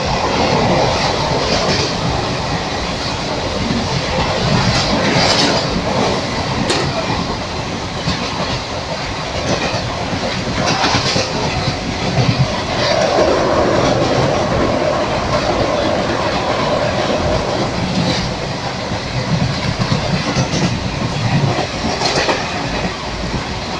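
A moving train running steadily on the rails, with a continuous rumble and scattered clacks of the wheels every few seconds.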